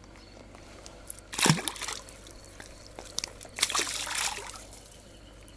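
Two splashes in shallow pond water about two seconds apart, as a carp and a crucian carp are let go and swim off.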